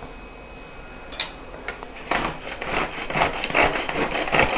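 Hand-pull string food chopper being pulled again and again, about three pulls a second, starting about two seconds in, its blades mashing boiled tomatoes. A couple of light ladle clinks come before.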